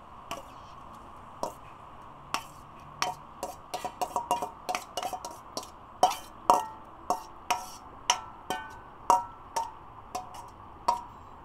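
Metal spoon clinking and scraping against a stainless steel mixing bowl while knocking the last of the seasoned pig tail out of it: a run of sharp, irregular metallic clinks with a short ring, coming fastest around the middle.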